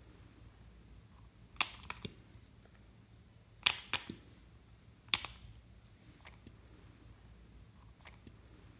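Sharp small plastic clicks from handling lip gloss tubes and wand caps: a quick cluster of three or four about a second and a half in, a few more around four seconds in, a single one about five seconds in, then only faint ticks.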